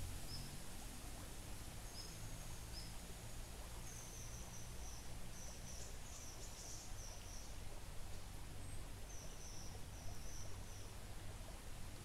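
Faint, high-pitched bird calls: thin short notes, a few singly at first, then strung into quick runs about four seconds in and again about nine seconds in, over the soft, even flow of a calm, shallow stream.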